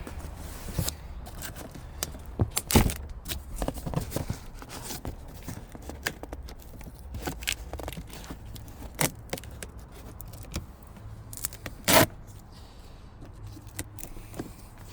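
Parts and packaging for a diesel heater kit being handled and unpacked: scattered clicks, clinks, scrapes and rustles, with two sharper knocks, one about three seconds in and one near twelve seconds. A low steady hum runs underneath.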